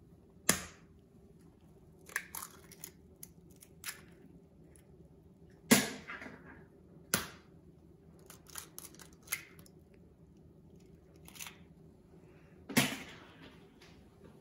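Eggs being knocked and cracked against a stainless-steel mixing bowl: a series of sharp taps and clicks, with two loudest knocks about seven seconds apart, over a faint steady hum.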